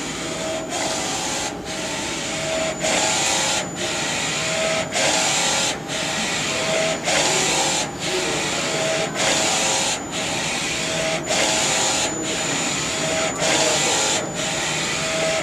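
NC-610A direct-to-garment T-shirt printer running a print: the print-head carriage sweeps back and forth over the shirt with a steady motor whine. The whine drops out briefly at each reversal, about once a second.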